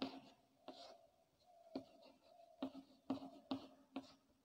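Chalk writing on a chalkboard: faint, short scratches and taps, about seven strokes at uneven intervals as letters are written.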